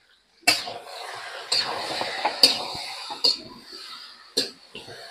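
Metal spatula stirring marinated mutton and sliced onions in a kadhai, scraping along the pan with sharp clinks against its metal about once a second. The scraping is strongest for the first couple of seconds and fades as the clinks go on.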